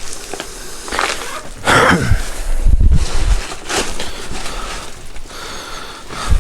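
Footsteps and handling noise over cluttered ground: irregular scuffs, rustles and knocks, with heavy thumps about two and three seconds in.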